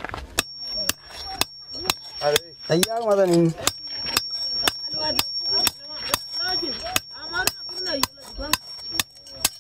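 Hand hammer beating a piece of metal on a stone anvil, about two blows a second, each with a high metallic ring, with people's voices in between.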